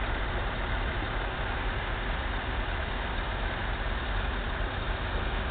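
Heavy farm machinery running steadily: a tractor-drawn sugar beet harvester at work, a constant engine and machine noise.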